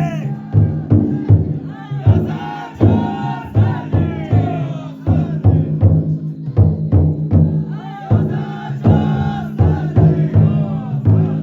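Futon daiko float's taiko drum beating a steady rhythm, with the float's carriers chanting and singing loud, drawn-out calls over it.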